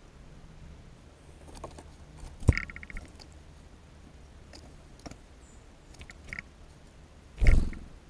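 A small songbird lands on a seed-strewn feeder with a sharp thump about two and a half seconds in. A few light clicks follow as it picks among seeds and shells, then a short burst of wing flutter as it flies off near the end.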